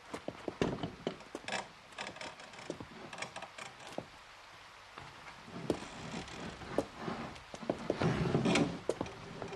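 A heavy wooden gate being knocked at and rattled. First comes a quick run of sharp knocks and clatters, then a longer stretch of scraping and clattering that is loudest near the end.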